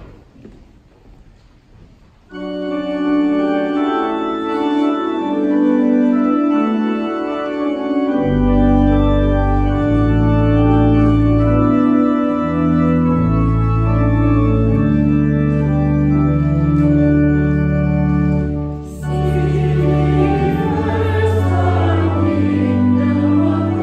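Church organ playing a hymn introduction in sustained chords, its deep pedal bass coming in about a third of the way through. Near the end the congregation starts singing the hymn with it.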